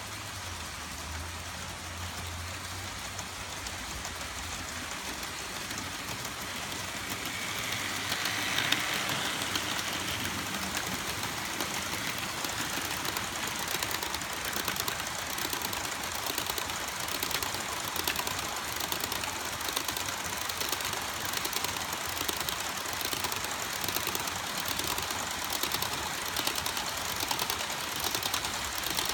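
HO-scale model covered hopper cars rolling steadily along the track, a continuous clatter of small wheels on rail with rapid clicking, and a low hum in the first few seconds that fades away.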